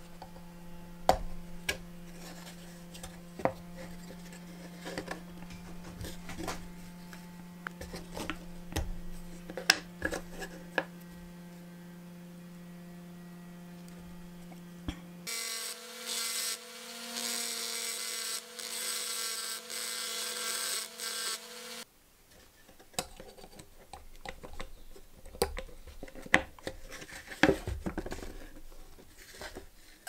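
A rotary tool grinding at a rivet on an old steel pocket knife, starting about halfway through and stopping abruptly some six seconds later. Before and after, there are sharp metallic clicks and taps as the knife's parts are handled, over a steady low hum in the first half.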